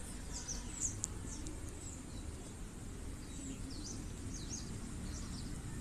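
Faint background birdsong: small birds giving short, high chirps again and again over a low, steady hum of room noise.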